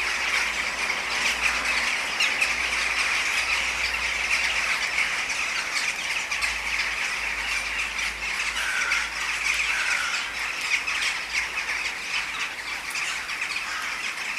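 A huge flock of western jackdaws calling as they fly overhead: a dense, continuous chatter of many short overlapping calls.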